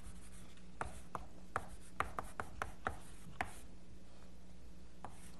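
Chalk writing on a blackboard: a string of short, irregular taps and scrapes as the strokes are made, thinning out in the last couple of seconds.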